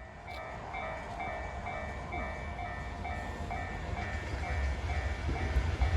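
Japanese railway level-crossing warning bell ringing in a steady repeating two-tone clang, about two strokes a second. Under it, the low rumble of an approaching freight train builds toward the end.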